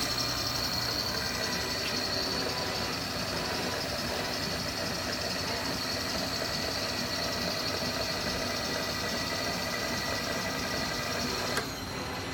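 Milling machine running steadily with a constant high whine while the table traverses, sweeping a dial indicator along the vise jaw to check it for square. It cuts off with a click near the end.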